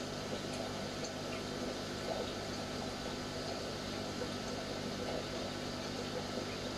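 Aquarium pump running: a steady hum under a light, continuous watery trickle.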